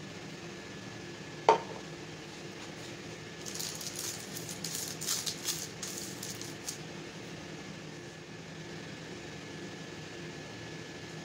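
Cookware set down on the work surface with a single sharp knock that rings briefly, about a second and a half in. Then butter paper crinkles and rustles for about three seconds as it is pressed into a stainless steel pan, over a steady low background hum.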